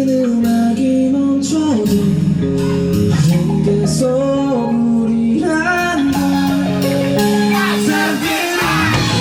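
Rock band playing live: electric guitar and bass guitar with singing. Near the end the notes slide down in pitch, and the full band comes back in right after.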